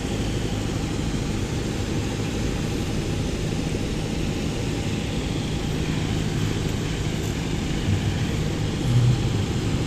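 Steady low rumble and hiss of outdoor background noise, with a couple of short low thumps near the end.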